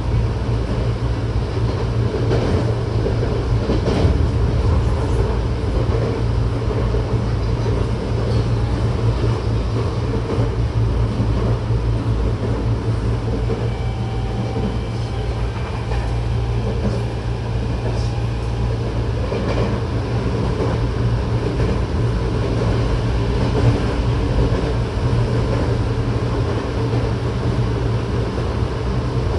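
A Tokyo Metro 08 series electric train with Mitsubishi IGBT-VVVF drive, heard from inside a passenger car while running at speed: a steady rumble of wheels on the rails that holds level throughout, with a few faint whistling tones in the middle.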